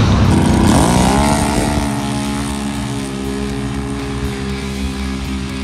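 Off-road race vehicle's engine at full throttle, its pitch dipping and then climbing again in the first second or two. It then drops back under steady background music.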